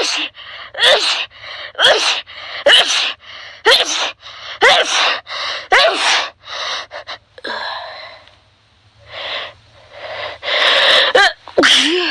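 A person sneezing over and over in a rapid allergic sneezing fit, about one voiced sneeze a second, with a brief quieter pause past the middle before the sneezes start again.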